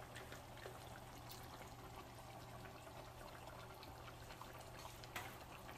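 Fish curry simmering faintly in a pan on a gas stove, with scattered small bubbling pops over a steady low hum.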